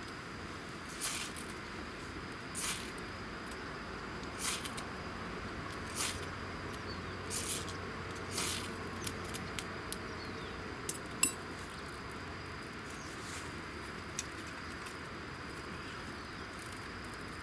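Ferrocerium fire-starter rod struck with a scraper to light tinder: about six short scrapes over the first nine seconds, followed by a few sharp clicks.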